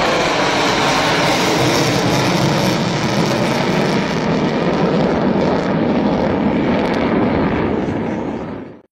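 Tupolev Tu-160 bomber's four NK-32 turbofan engines heard in flight: a loud, steady jet rush whose highest hiss thins out about halfway through. The sound fades out sharply at the very end.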